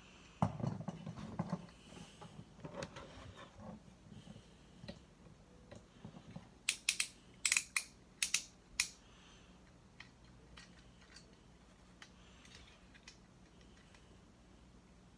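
A G1 Optimus Prime Transformers toy being handled and transformed by hand: its parts rustle and knock in the first few seconds, then there is a quick run of about six sharp clicks around the middle, then faint scattered clicks.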